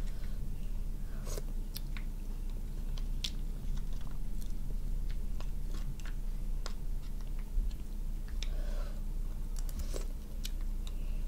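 A metal spoon scraping and clicking against crab shell as meat is scooped out, with close-miked chewing and mouth sounds, in scattered sharp clicks over a low steady hum.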